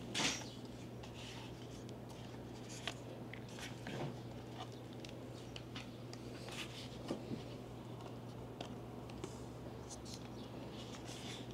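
Faint handling sounds: scattered light clicks, taps and rustles, the sharpest just at the start, over a steady low hum.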